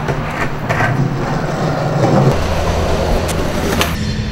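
Skateboard wheels rolling over pavement, a steady rumble that shifts lower a little past two seconds, with a few sharp clacks of the board.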